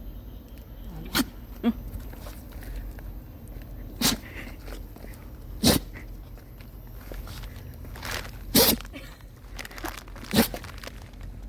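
Welsh corgi sneezing repeatedly: a series of about six short, sharp sneezes, one to three seconds apart.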